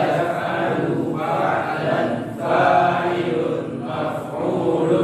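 A group of students chanting Arabic verb-conjugation (tasrif) patterns in unison, in a rhythmic sing-song of short phrases about a second long with brief breaks between them.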